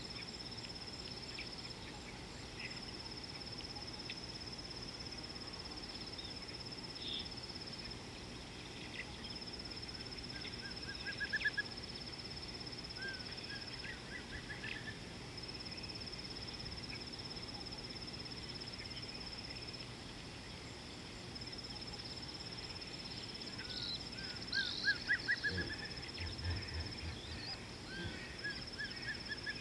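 Bush ambience: an insect trills steadily at a high pitch in bouts of several seconds with short breaks, while a bird calls twice in quick series of rising notes, about ten seconds in and louder again near the end.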